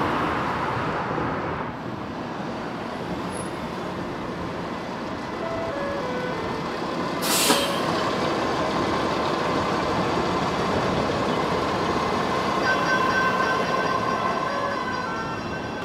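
Steady street traffic noise from passing vehicles, with a short, loud hiss about halfway through. A tune of short stepped notes starts near the end.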